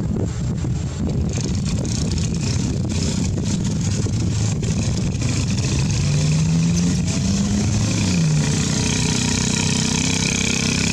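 A motor engine running over a steady low rumble, its pitch rising and then dropping about two thirds of the way in.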